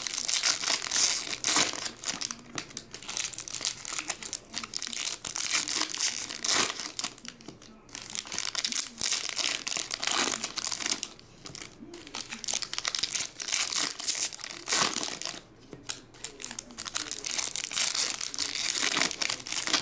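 Foil wrappers of 2023 Topps Update baseball card hobby packs crinkling and tearing as they are pulled open by hand, in bouts of a few seconds with short lulls between.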